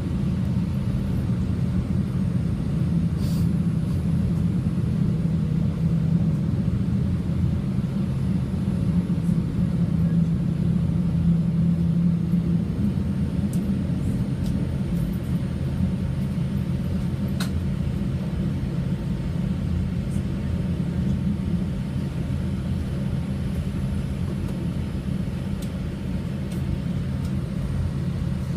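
Boeing 787-8 airliner making a steady low rumble, with a few low tones holding steady, and no clear rise or fall in level.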